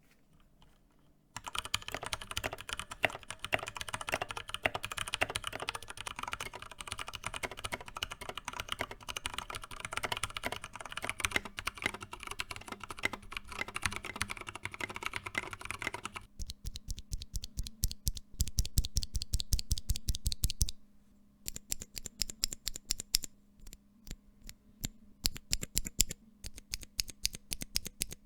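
Mechanical keyboard with Cherry MX Brown tactile, non-clicky switches being typed on quickly and continuously for about fifteen seconds. Then comes a fast, even run of repeated keystrokes lasting about four seconds, followed by slower single key presses with short gaps.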